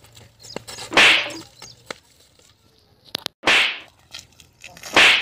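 Three sharp whip-like swishes, about one second, three and a half seconds and five seconds in, each lasting about half a second, with a couple of quick clicks just before the second.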